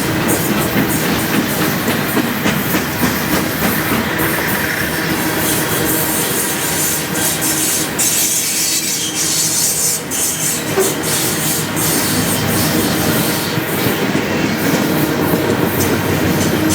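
Freight train cars rolling past, a steady rumble with the wheels clicking rhythmically over rail joints.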